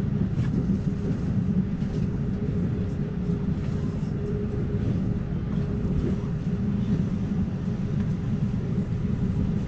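Amtrak Cascades passenger train running at speed, heard inside the passenger car: a steady low rumble of wheels on rails with a faint steady hum and a few light clicks.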